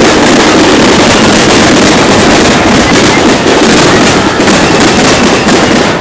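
Fireworks barrage: a dense, continuous run of overlapping bangs and crackles, very loud, with no gap between shells. This is typical of a fireworks finale.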